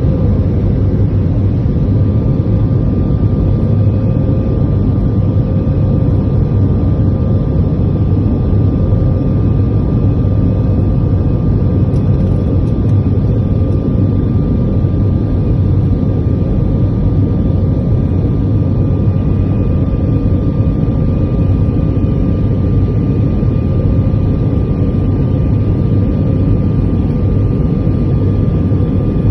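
Jet airliner engines heard from inside the passenger cabin: a loud, steady drone with faint constant whines above it, the engines running at high power around takeoff and climb.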